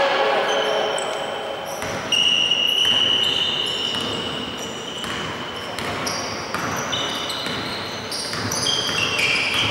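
Echoing sports-hall sound of a basketball game in play: a ball bouncing on the hardwood court, with players' shouts.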